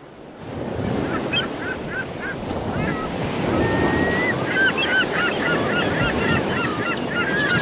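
A steady rushing noise, like surf or wind, swells up over the first second. Above it, from about a second in, birds call over and over in short bending calls, with one longer level call about halfway.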